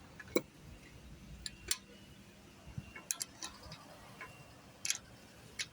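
A series of sharp clicks and light taps at irregular intervals, over a faint low hum.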